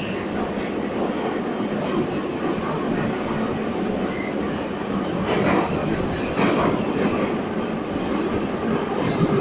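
Inside a type 81-540.7/541.7 metro car running between stations: a steady rumble of wheels and running gear, with a thin high squeal in the first half and several sharp knocks of the wheels over rail joints in the second half.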